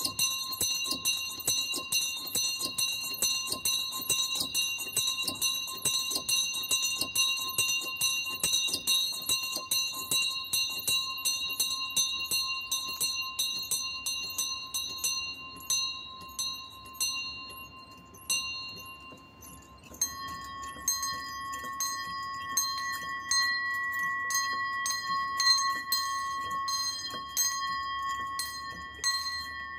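Small swinging bells in a wooden bell frame ringing, their clappers striking rapidly and evenly. About two-thirds through the ringing briefly dies down, then a different bell chord with a changed note takes over and rings on.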